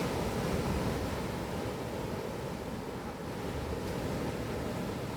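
Sea waves washing ashore in a continuous rush, with some wind buffeting the microphone.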